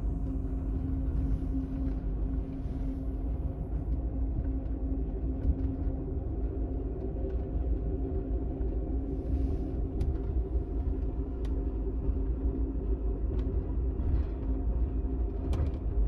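Amtrak Superliner sleeper car running along the line, heard from inside the roomette: a steady low rumble with a faint hum and a few sharp clicks from the running gear.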